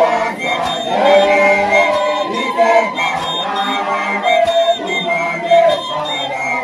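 Many voices singing and chanting a song together, with scattered sharp percussive hits among them.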